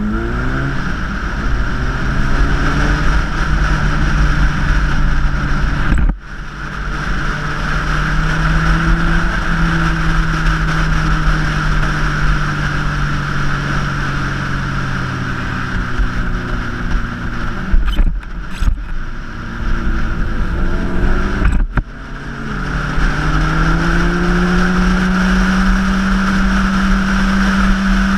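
Small motorcycle engine ridden hard, running loud at high revs. Three times the engine note drops off briefly, then climbs again as it pulls away, and it rises steadily near the end.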